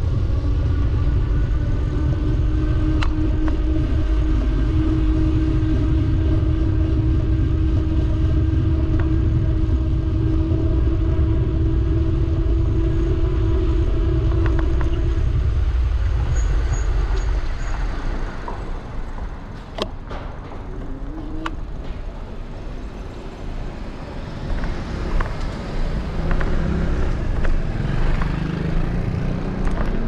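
Riding noise from an Apollo Explore electric scooter: heavy wind rumble on the handlebar-mounted camera and a steady motor whine. The whine stops about halfway through, the rumble then eases, and a few sharp clicks follow.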